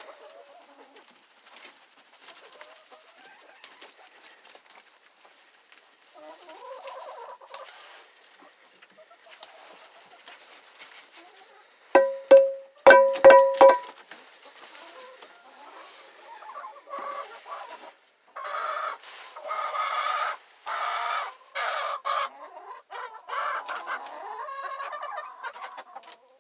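A flock of hens clucking around freshly dumped feed. There are a few loud short squawks about halfway through, then a run of loud calls with short breaks between them near the end.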